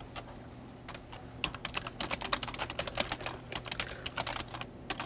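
Typing on a computer keyboard: a run of quick, irregular key clicks, sparse at first and busiest from about a second in until near the end.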